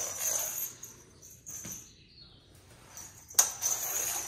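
Rustling and scraping of a feather wand cat toy being whisked across the floor, with a sudden louder rustle about three and a half seconds in.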